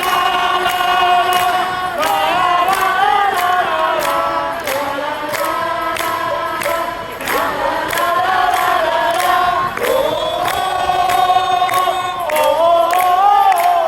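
A crowd of supporters singing a chant together in unison, with a regular beat of sharp hits about twice a second.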